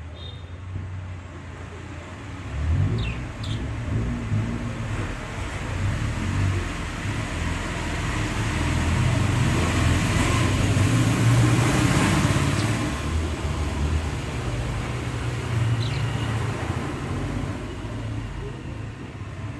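A motor vehicle's low rumble builds to a peak about two thirds of the way through and then fades, as if passing by. A few short, high bird chirps cut through it.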